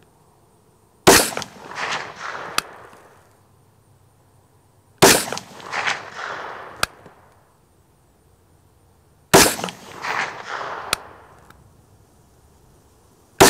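Semi-automatic AR-15 rifle in 25-45 Sharps firing single aimed shots, about four seconds apart: three in full and a fourth right at the very end. Each report is followed by about two seconds of echo and a brief sharp tick.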